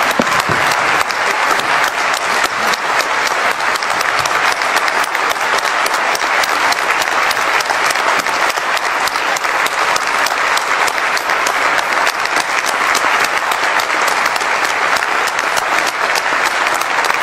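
A large hall audience applauding steadily, a long ovation of many hands clapping together.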